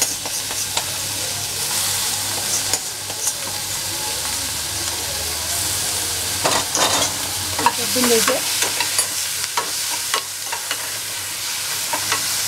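Capsicum, onion and chilli paste sizzling in oil in a hot pan on a high flame. A metal spoon scrapes and clicks against the pan as the paste is stirred in, mostly in the second half.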